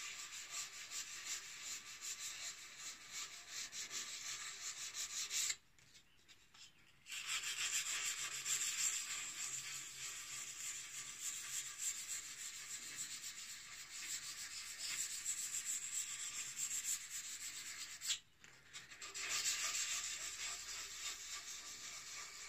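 400-grit sandpaper rubbed by hand along a steel axe blade's edge, cleaning up the freshly ground edge: a steady scratchy hiss of rapid back-and-forth strokes. It stops briefly twice, about five and a half seconds in and again near eighteen seconds.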